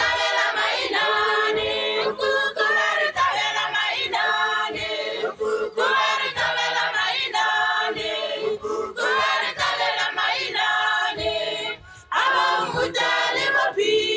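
A choir of voices singing, in phrases of a few seconds with short breaks between them, one near the end.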